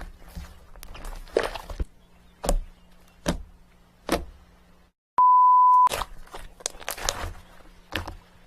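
A series of sharp knocks and clicks, about one a second. About five seconds in the sound drops out and a loud electronic beep at one steady pitch holds for under a second, the kind of bleep dropped in by an editor, before the knocks resume.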